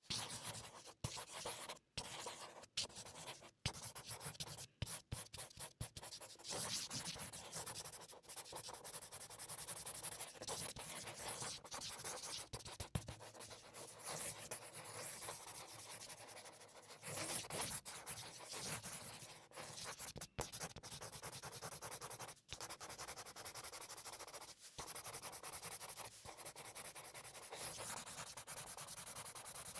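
Copic marker nibs rubbing and scratching across paper in continuous strokes, broken by frequent sudden brief gaps.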